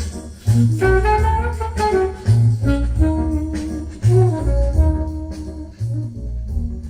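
Recorded music played through Polk Audio S15 bookshelf speakers and picked up by a microphone: a melody over heavy, repeating bass notes.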